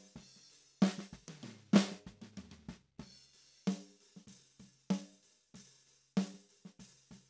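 Multitrack recording of an acoustic drum kit playing back on its own: kick, snare and hi-hat in a steady groove, with a strong hit about every second and lighter hi-hat ticks between. About two seconds in comes a quick fill that falls in pitch.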